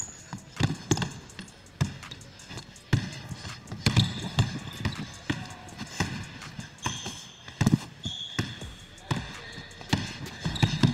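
Basketball dribbled on a hardwood gym floor: a string of irregular bounces, with short high squeaks in between.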